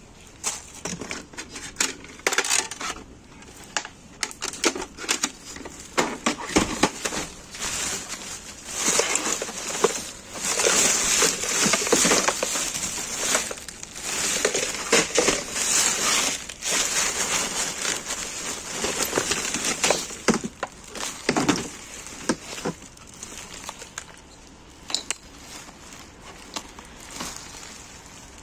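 Plastic bags and plastic wrap crinkling and rustling as items are handled and pulled about, with scattered knocks and clinks of hard objects. It is busiest in the middle and thins out over the last few seconds.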